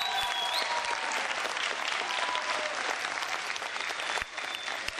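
Theatre audience applauding a performer's bow at the end of an act, steady dense clapping that thins a little near the end.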